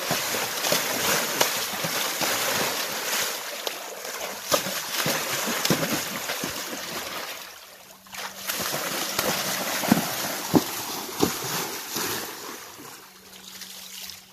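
Draft horse pawing in shallow creek water with its front hooves, a steady run of splashing. The splashing breaks off about eight seconds in, comes back with a few sharp slaps, then dies away near the end.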